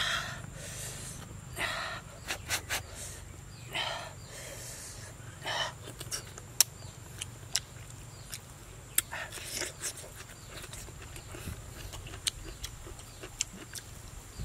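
A person eating grilled fish and bamboo shoots by hand: chewing and lip-smacking clicks, with short breathy puffs every second or two.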